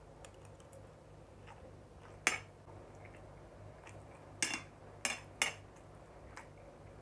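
Metal cutlery clinking against a plate while scooping rice: four sharp clinks with a short ring, one a little after two seconds in and three close together between about four and a half and five and a half seconds in.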